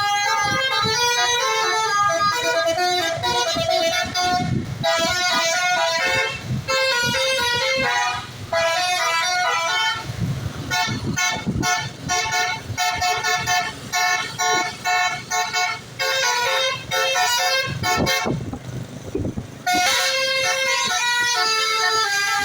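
A bus's basuri (telolet) multi-tone horn playing a quick stepping melody in repeated phrases, with short breaks. Engine and traffic rumble shows through in the gaps.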